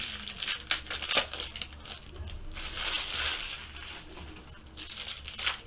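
Plastic wrapper of a trading-card pack crinkling as it is opened and handled, with scattered light clicks and taps of the pack and cards.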